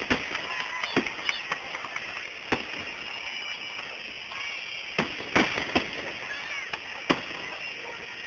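Aerial fireworks bursting, recorded on a phone: about eight sharp bangs, three close together near the start and another cluster around five seconds in, over a steady hiss.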